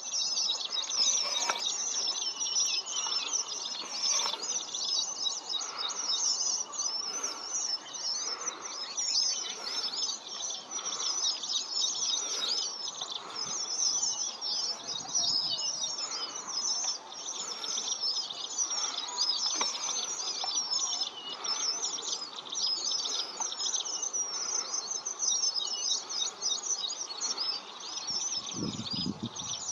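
A large flock of red avadavats chirping continuously, many high, thin calls overlapping. There is a brief low rumble near the end.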